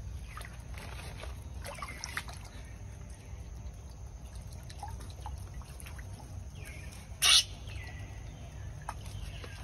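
Water trickling and splashing as a macaque works its hands in a shallow pond, with a few short, high, falling squeaks and one loud, sharp burst about seven seconds in.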